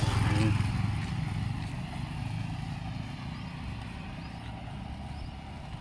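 Motor vehicle engine noise on the road: a low, steady rumble, loudest at the start and fading away.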